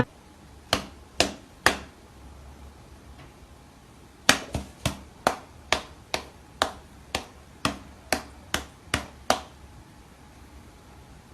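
A series of sharp taps or knocks: three about half a second apart near the start, then, after a pause of a couple of seconds, a run of about a dozen evenly spaced taps, roughly two a second.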